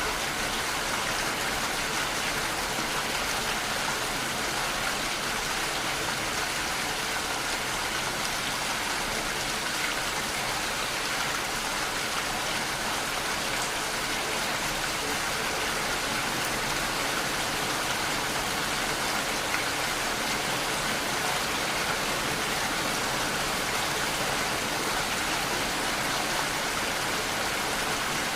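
Steady, even rushing of water, like a rain or stream ambience track, with no separate drops, knocks or changes.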